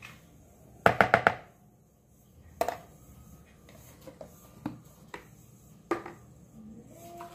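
A metal spoon tapped four times in quick succession against the rim of a mixing bowl to knock off baking powder, then a few single knocks as a can and spoon are set down on the counter.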